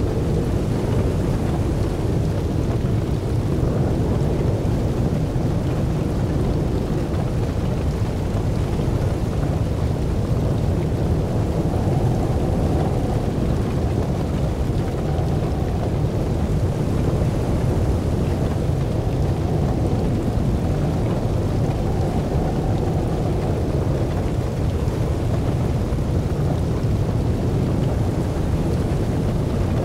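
Wind buffeting the microphone: a steady low rumble with no breaks or distinct events.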